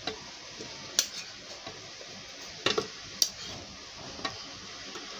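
Chopped mango pieces dropped into a mixer-grinder jar, landing with a handful of short knocks against the jar. The loudest knocks come about a second in and about three seconds in.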